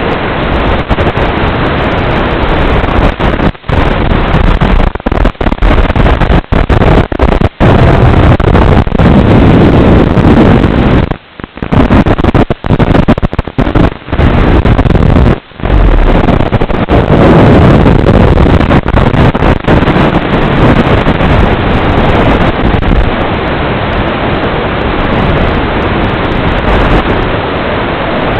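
Loud, rough wind rush and motor noise from a flying Emax Hawk 5 FPV quadcopter, heavily distorted, with several brief dropouts where the sound cuts out for a moment.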